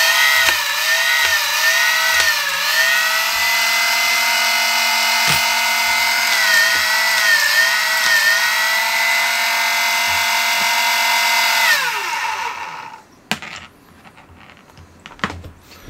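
Brushed flywheel motors of a 3D-printed Hummingbird foam-dart blaster spinning with a high, steady whine. The pitch wavers twice, then the motors wind down about twelve seconds in, followed by a few clicks. It is a power-on test of fresh wiring, which turns out to have its switches wired in reverse.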